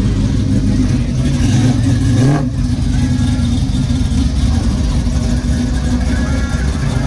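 Deep V8 exhaust rumble of muscle cars running, with one short rev that rises in pitch about two seconds in.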